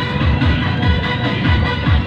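Music with a steady, heavy bass beat.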